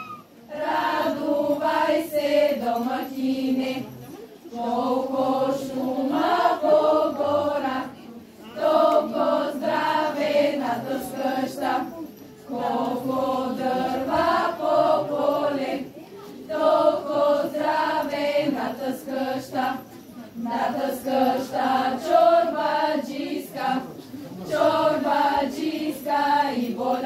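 A group of girls and women singing a Bulgarian lazarki ritual song in unison, in sung phrases about four seconds long with a short breath between each.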